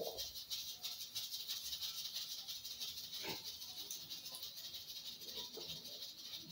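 A small kitchen knife slicing fresh green beans lengthwise into thin strips: a quick, quiet run of crisp scratching and snapping, with one knock about three seconds in.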